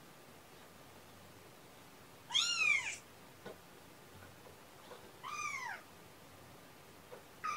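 Kitten meowing: two high-pitched meows about three seconds apart, each rising and then falling in pitch, with a third starting at the very end.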